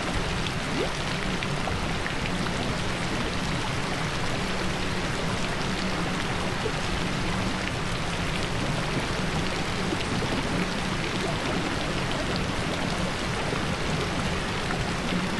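Steady rain falling on a surface, an even patter of drops with a constant low hum beneath it.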